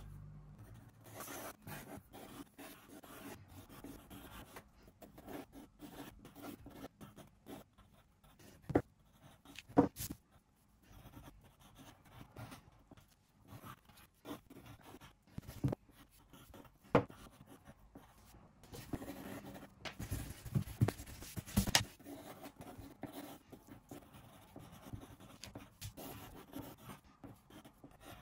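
Pencil sketching on paper: a run of scratchy strokes, with a few sharper knocks and taps scattered among them.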